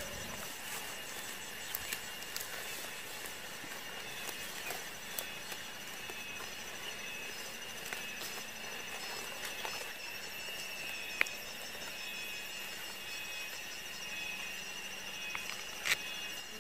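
Insects chirring steadily in a high, even pulse, with a few short sharp clicks; the loudest click comes about eleven seconds in.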